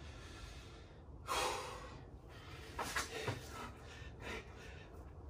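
A man breathing hard from the exertion of burpees with push-ups, with several loud, gasping breaths a second or two apart.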